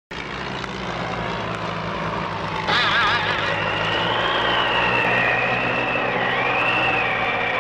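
Dubbed-in sound effect: a steady low droning hum starts suddenly, and about three seconds in a louder, wavering high whine joins it, gliding up and down.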